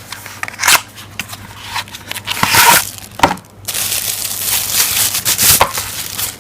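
Packaging being opened by hand: irregular crinkling and rustling, with several sharp clicks and scrapes, as a charging cable is unboxed.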